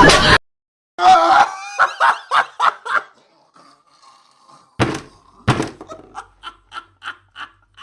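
Cartoon sound effects: a run of rhythmic laughter, two loud thuds about halfway through, then more laughter in short evenly spaced bursts that grow fainter.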